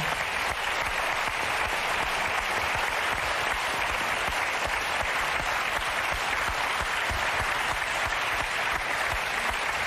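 Studio audience giving a long, steady round of applause.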